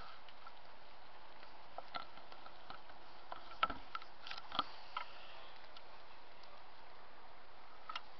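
Steady hiss of a quiet night with a scattering of small clicks and ticks, the sharpest about three and a half and four and a half seconds in.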